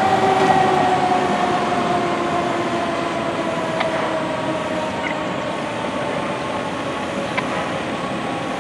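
A fire-truck siren held on a steady tone that slowly drops in pitch and fades, over engine and street noise.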